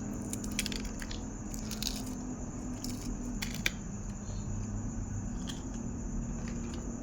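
A person chewing and eating grilled pork salad with sticky rice, with scattered sharp mouth or utensil clicks.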